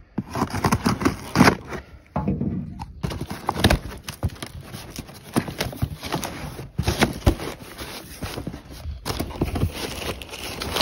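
Cardboard box being cut open and its flaps pulled back, then crumpled brown packing paper rustling and crackling as it is pulled aside, with irregular knocks and scrapes throughout.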